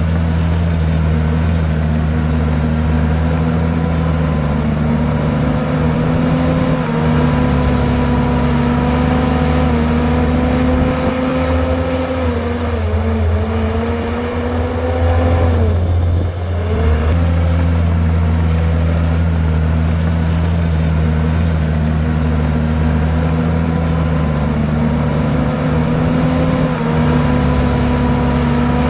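Komatsu bulldozer's diesel engine running steadily under load. Its pitch sags twice around the middle as the engine lugs, then picks back up.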